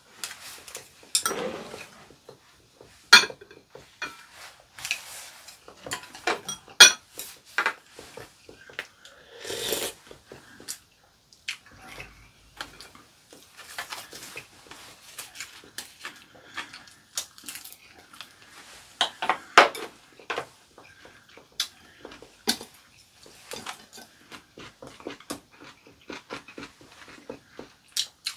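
Chopsticks and spoons clicking against ceramic bowls and plates in quick scattered clinks, with eating noises such as slurps and chewing in between.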